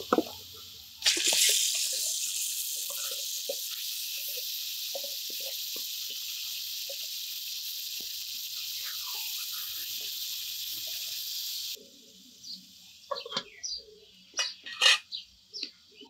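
Marinated beef tipped into hot oil and fried onions in a metal karai, sizzling loudly from about a second in, with a metal spatula scraping and knocking the pan as the meat is stirred. The sizzle cuts off after about eleven seconds and a few light knocks follow.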